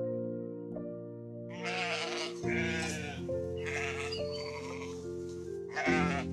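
Sheep bleating about four times, starting about a second and a half in, over background music of sustained chords.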